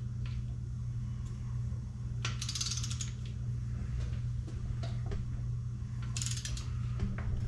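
Click-type torque wrench ratcheting on small-block Chevy main bearing cap bolts during the first 30 ft-lb torque pass: two bursts of rapid ratchet clicking, about two and a half seconds in and again about six seconds in, with scattered single clicks between them.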